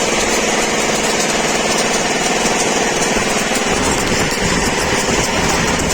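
A small engine, most likely the generator powering the welder, runs steadily, with the dense crackle and hiss of stick arc welding from an inverter welding machine over it.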